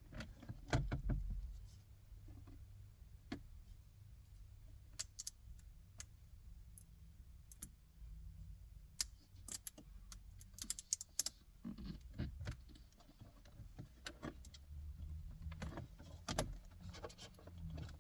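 Plastic radio trim panel in a Cadillac CTS dash being pried loose: scattered sharp clicks and taps of the trim and its retaining clips, coming in clusters, over a low rumble.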